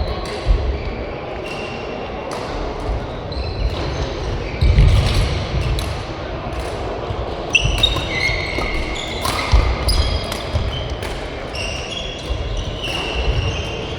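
Badminton rally: racket strikes on the shuttlecock as sharp cracks, court shoes squeaking on the floor in short high squeals, and thudding footsteps.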